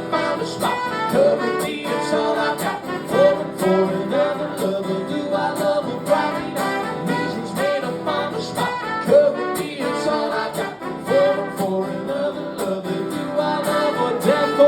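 Live acoustic guitar strummed in a steady rhythm, with a melody line over it and no words sung.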